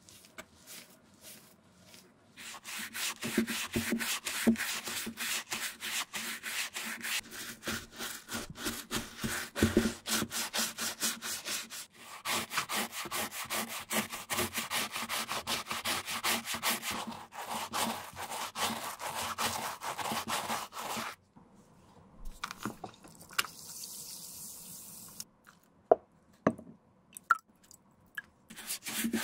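Stiff bristle brush scrubbing the lathered inside of a leather flat shoe with fast back-and-forth strokes, several a second. It pauses briefly and then stops about two-thirds of the way through. A quieter hiss and a few sharp clicks follow near the end.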